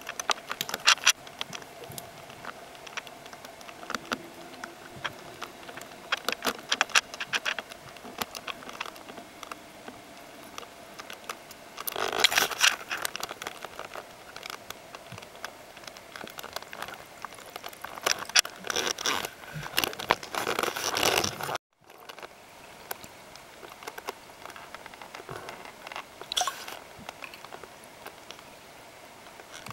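Underwater sound picked up through an action camera's waterproof housing: a continuous crackle of small clicks and ticks. Louder stretches of rushing noise come about twelve seconds in and again from about eighteen to twenty-one seconds, and the sound cuts out for a moment just after that.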